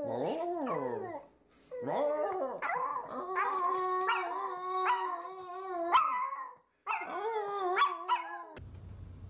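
A small Pomeranian-type dog howling in three drawn-out, wavering calls. The middle call is the longest, held for several seconds.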